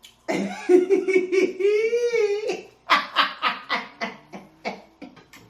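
Hearty laughter: quick laugh pulses and a drawn-out high laugh, then a string of separate laughs that fade out toward the end.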